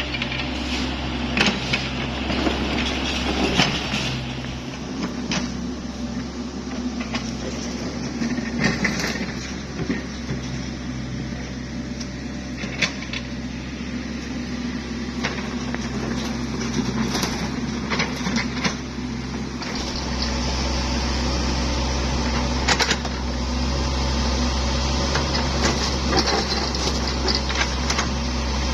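Kubota U50 mini excavator's diesel engine running steadily while it works, with scattered sharp clanks and knocks. The engine hum grows louder about twenty seconds in.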